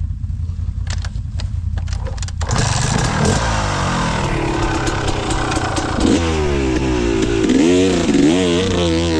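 ATV engine running low, then opened up hard about two and a half seconds in, its revs rising and falling over and over as the quad works its way through mud and up a slope.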